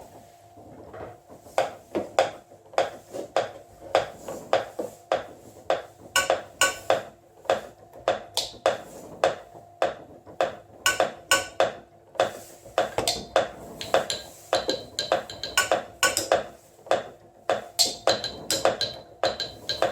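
A homemade mechanical acoustic beat sequencer striking objects in a repeating rhythm of knocks and clicks. It starts a couple of seconds in, and sharper, brighter hits join about six seconds in. A faint steady hum runs underneath.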